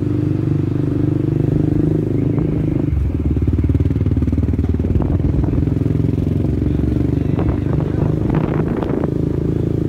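Motorcycle engine running while ridden. Its pitch rises over the first two seconds, then drops to a deeper note about three seconds in and carries on steadily.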